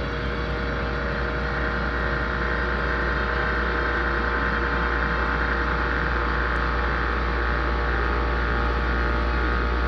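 Droning noise intro of a heavy metal track: a steady deep hum with held tones above it, slowly swelling louder.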